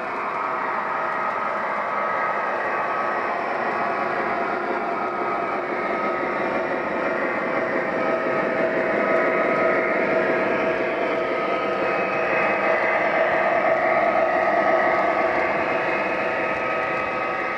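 MTH O-gauge GE Evolution-series diesel locomotives and train running on three-rail Fastrack: a steady rumble of wheels on track with a steady motor hum. It grows louder as the locomotives pass close, loudest a little past the middle.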